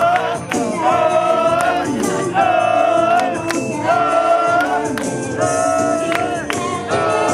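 Upbeat J-pop idol song: high female voices singing in unison in held notes over a steady dance beat.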